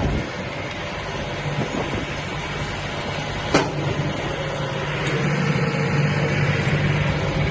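Tractor and hay baler running steadily, a low engine hum under a rattle of machinery noise, with one sharp click about halfway through; the drone grows louder in the last couple of seconds.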